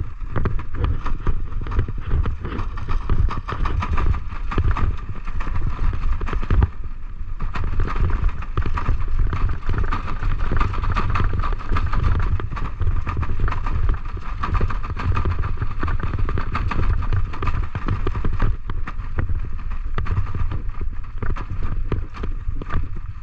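Continuous rolling noise of a rig drawn by a husky team on the move: a steady low rumble with rapid rattling and patter from wheels and paws on the path, and wind buffeting the microphone.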